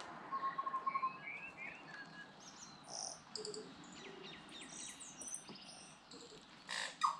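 Tui singing a varied run of notes: a quick pulsing tone, short sliding notes, and high chirps and clicks. Two or three brief noisy bursts come near the end.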